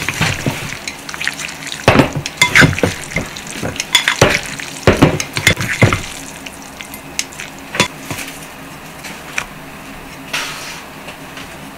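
Chopsticks tossing sauce-coated noodles in a ceramic ramen bowl: wet slapping and squelching with chopsticks clicking against the bowl, busy for about six seconds, then only a few scattered taps as chashu pork is laid on top.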